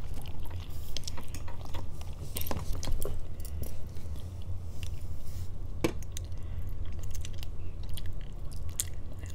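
Close-up chewing and slurping of spaghetti, with scattered clicks of forks against plates, the sharpest about six seconds in, over a steady low hum.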